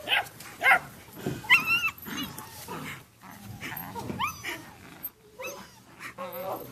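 Belgian Malinois puppy yipping and whining, a series of short high-pitched yelps, several sliding upward in pitch.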